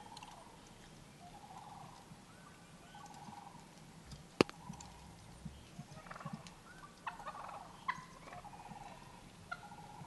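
Wild turkeys gobbling faintly, a string of short rattling gobbles spread through, with one sharp click about four and a half seconds in.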